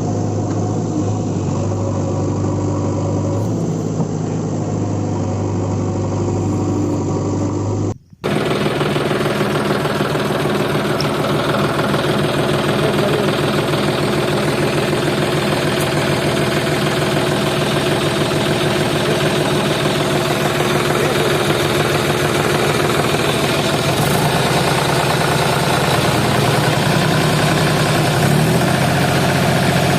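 Heavy machine engine running steadily. A cut about eight seconds in is followed by an engine running on at a different pitch, and the pitch shifts again near the end.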